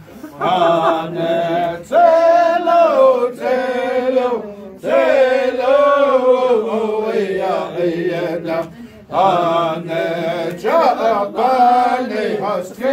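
Male voices singing a Navajo shoe game (keshjee) song, chanted phrases with short breaks between them.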